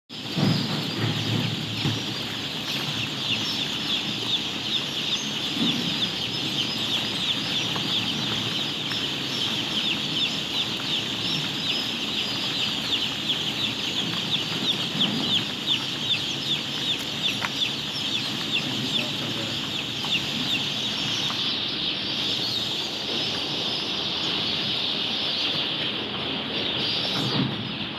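Many day-old chicks peeping all together, a dense chorus of short, high, falling cheeps overlapping without a break.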